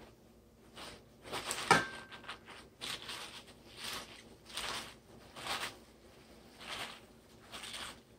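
Paper towel rustling as it is pressed and patted down over wet chopped romaine lettuce in a pan, a soft swish about once a second. A sharper knock about two seconds in is the loudest sound.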